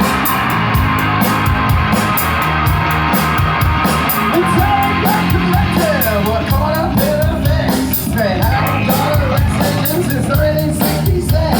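Live rock band playing loudly, with a full band sound and a steady beat; a wavering high melodic line comes in about halfway through.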